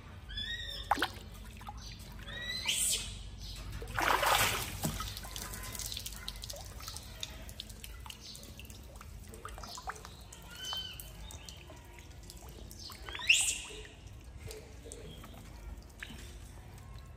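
Short high chirping squeaks every few seconds, the loudest and sharpest about thirteen seconds in, with liquid splashing and trickling, heaviest about four seconds in.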